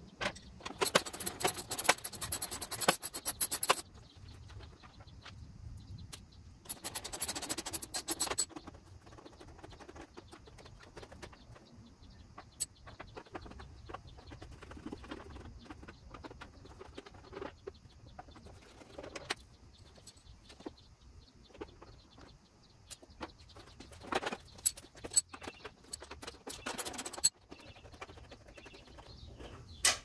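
Metal hand tools working on a scooter's front end, heard as three bursts of quick metallic clicking and rattling: about a second in, around seven seconds in, and near the end. Fainter scattered clicks come between the bursts.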